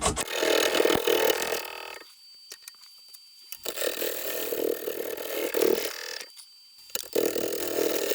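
A turning tool cutting into a spinning poplar log on a wood lathe, roughing the out-of-round blank toward round. The tool goes into the wood in three passes, with the quieter run of the lathe heard in two short gaps between them.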